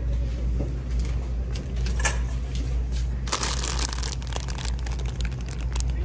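Crinkling of clear plastic packaging as a bagged ghost garland is handled, starting about three seconds in, over a steady low hum.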